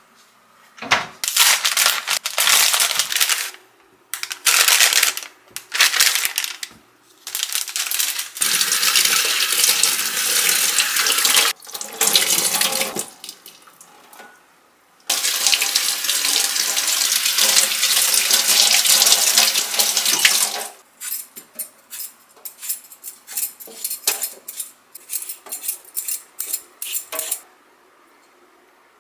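Kitchen tap running in bursts, turned on and off, with longer steady streams in the middle as produce is rinsed under it. Near the end, a rapid run of short strokes.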